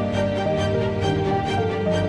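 Background music: a soft melodic instrumental with held notes changing every half second or so.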